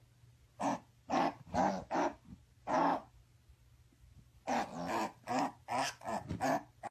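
A dog barking in short separate barks: about four spaced barks, a pause, then a quicker run of six.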